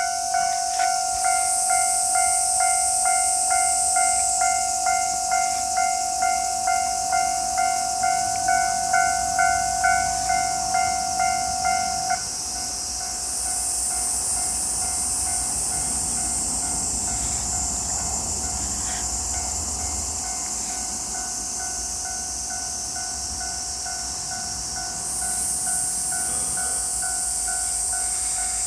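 Japanese railway level-crossing warning bell ringing in a fast, steady beat of about two strokes a second. About twelve seconds in, the beat stops and a fainter, steady ringing tone carries on. A low rumble rises and fades in the middle, fitting a train going over the crossing.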